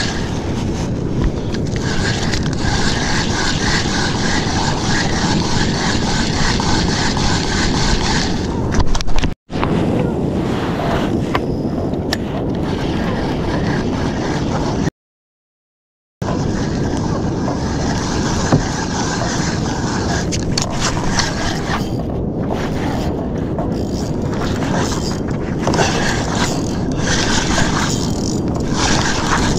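Steady wind rushing over the microphone with the sea around a kayak. The sound cuts out to dead silence twice, briefly about a third of the way in and for about a second at the halfway point.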